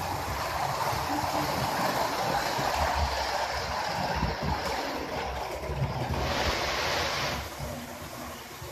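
HO scale model passenger train running past close by: a steady rushing rumble of its wheels on the rails and its motor. A brief brighter hiss comes in about six seconds in, and the sound eases a little near the end.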